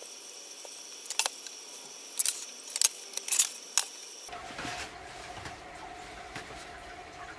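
Thin hardwood veneer strips clacking as they are laid down and shifted into place on a plywood panel: several sharp clicks in the first four seconds, then softer taps.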